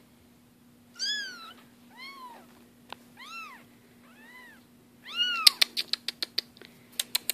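Four-week-old Bengal kittens mewing, five high calls about a second apart, each rising then falling in pitch; the kittens are away from their mother for the first time and looking for her. From about halfway in, a quick run of sharp clicks, about five a second, is the loudest sound.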